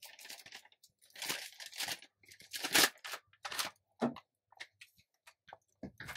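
Garlic powder packaging crinkling and rustling in irregular bursts as it is emptied into a bottle.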